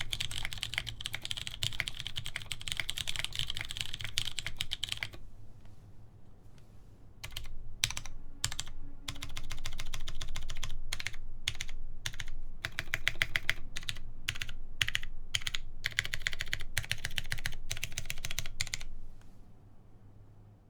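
Mechanical keyboard typing: a Syryan Monte Bianco with lubed Cherry MX Clear tactile switches on a full aluminium plate, with PBT DCS keycaps. Fast, steady typing for about five seconds, a pause of about two seconds, then single keystrokes and short runs of keys, dying away near the end.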